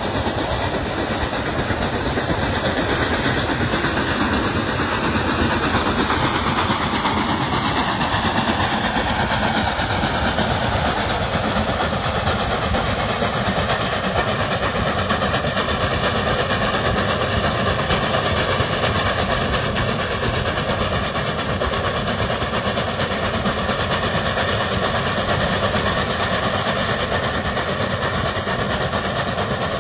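Reading T-1 class 4-8-4 steam locomotive No. 2102 running along the track, heard from a car driving alongside. Its sound is mixed into a steady rushing of road and wind noise.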